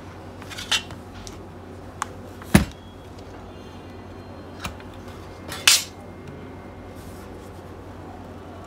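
Scattered clicks and knocks as a tablet and repair tools are handled on a silicone work mat. The loudest is a knock with a low thump about two and a half seconds in, then a sharp clack near six seconds.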